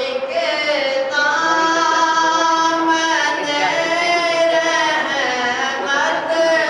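A young man singing a naat, an Urdu devotional song, unaccompanied into a microphone, in long held notes that slide between pitches.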